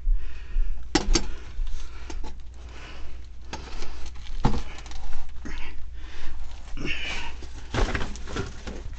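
Rustling and shuffling with a few sharp clicks and knocks, strongest about a second in, midway and near the end, as a person moves over debris and cardboard in a crawl space and handles plumbing fittings, over a steady low hum.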